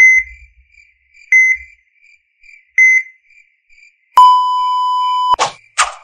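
Heart-monitor sound effect: three short high beeps about a second and a half apart, then a steady flatline tone for about a second, cut off by quick whooshes.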